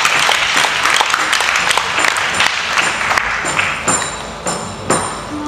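Audience applause that dies away over about three seconds, followed by a few light jingling taps just before the band's music begins.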